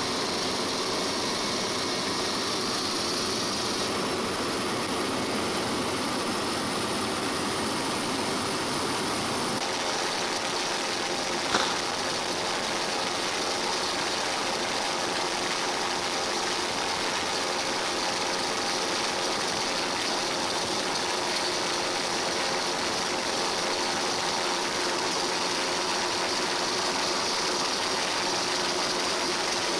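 Steady, unbroken engine-like noise with a broad hiss, its tone shifting slightly about ten seconds in, and a single short click near the middle.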